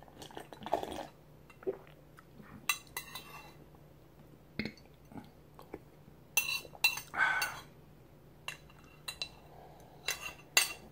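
A spoon clinking and scraping against a bowl, with scattered short ringing taps, as soup is eaten from it.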